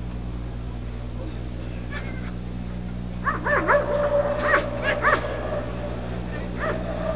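German shepherd dog whining and yelping: a quick string of short, high rising-and-falling yelps starting about three seconds in over a held whine, with one more yelp near the end.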